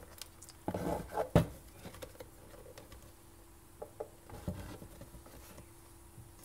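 Plastic coffee-maker base housing being handled and turned over: rubbing and rattling with one sharp knock about a second and a half in, then a few light clicks and a softer bump around four seconds in.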